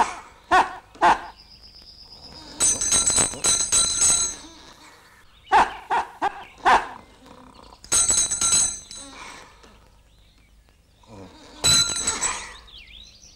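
A small brass handbell rung in three short bursts of ringing, between short, sharp voice-like calls.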